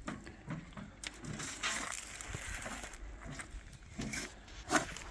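Compost soil being worked by hand: irregular crunching and scraping with a few sharp knocks, the loudest near the end.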